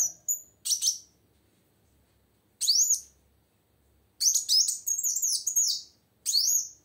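A female kolibri wulung sunbird calling: sharp, high-pitched chirps with quick rising-and-falling sweeps. There are single chirps early and around the middle, then a fast run of chirps about four seconds in and one more near the end.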